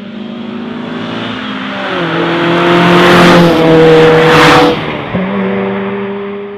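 Mazda RX-8's 1.3-litre Renesis rotary engine with an aftermarket exhaust, driving past at speed. A steady exhaust note grows louder as the car approaches and is loudest with a rush of tyre noise as it goes by, about four to five seconds in. It then drops in pitch and fades as the car moves away.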